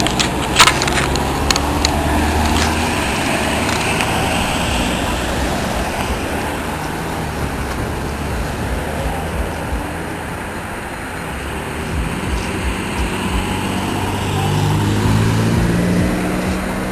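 Road traffic passing a roadside, a steady rush of tyres and engines. One vehicle's engine grows louder as it passes near the end. A single sharp knock comes just after the start.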